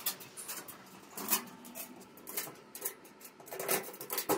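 Light, irregular metal clicks and taps as bolts are pushed into the holes of an E-track tie-down rail lying on a diamond-plate trailer deck, with louder clicks about a second in and near the end.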